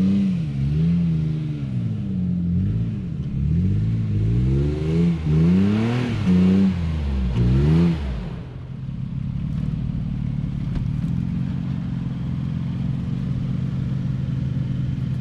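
Toyota Prado 120-series 4x4 engine revving up and down repeatedly while working over an off-road obstacle. It settles into a steady lower running note about eight seconds in.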